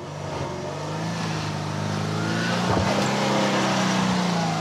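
Subaru's flat-four engine held at raised revs as it labours up a steep, rutted dirt climb, its note rising gradually and getting louder as it nears. Its clutch is oil-soaked from a leaking rear main seal and struggles to get the power down to the wheels.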